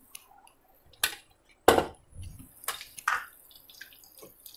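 Melted desi ghee crackling in a hot nonstick pan around a thick barfi dough: a handful of separate sharp pops, the loudest a little under two seconds in, with faint small ticks between them.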